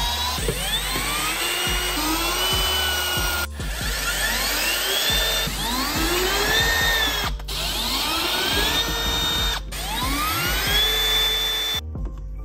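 Cordless drill with a socket spinning out underbody panel bolts, its motor whine rising in pitch and levelling off each time the trigger is pulled, about six times over.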